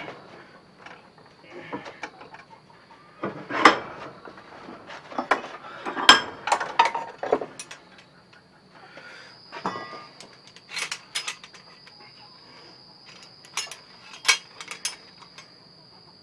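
Steel parts of a 330 Conibear body-grip trap clanking and clicking in irregular knocks as its springs are worked off in a bench vise, with louder clanks about four and six seconds in.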